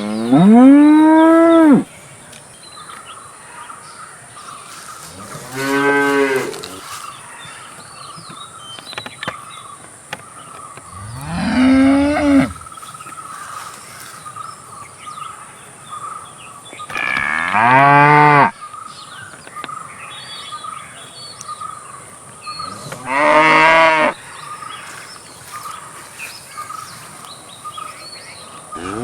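Cow mooing: about five long, drawn-out moos, each lasting one to two seconds and coming every five or six seconds.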